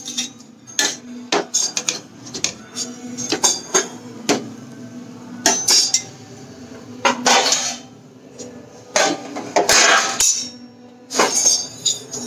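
Metal spatula scraping and knocking on a flat tawa griddle while soft pancakes are flipped: repeated sharp taps with a few longer scrapes. Near the end a steel plate clatters down as a lid over the griddle.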